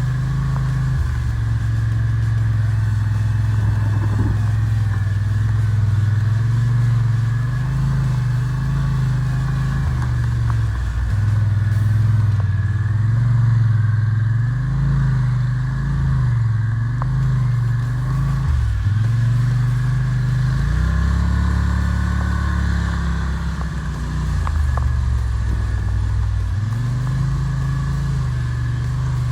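ATV engine running under way, its pitch shifting up and down several times as the throttle changes.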